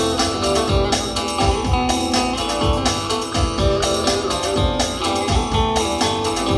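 Instrumental break of a Turkish folk-style song: a long-necked bağlama (saz) plucked with a plectrum, playing the melody over accompaniment with a steady beat.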